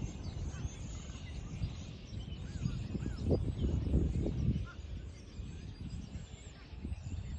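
Outdoor background noise with a low rumble that swells and fades, loudest around three to four and a half seconds in, with a few short bird chirps.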